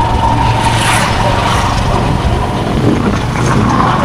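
Steady road noise from a moving vehicle in traffic: engine rumble with tyre and wind noise.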